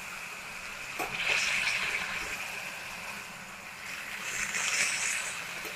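Cooked Malabar spinach stems and leaves sizzling in hot mustard oil in a kadai while a metal spatula stirs them, with a sharp click of the spatula about a second in.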